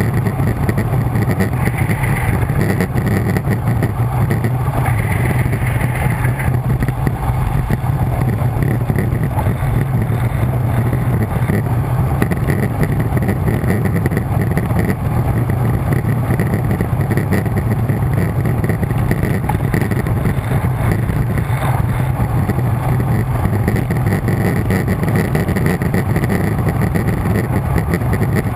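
Steady wind noise rushing over the microphone of a camera mounted on a road bike descending at speed.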